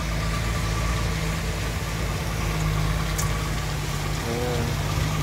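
A steady engine-like drone, like a motor idling, with a constant low hum, a thin steady whine above it and a light hiss.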